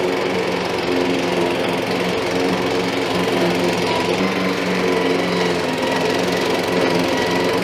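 Weibang Virtue 53 SMP Pro petrol mulching mower running steadily as it cuts long, rough grass, a constant engine hum with no change in tune.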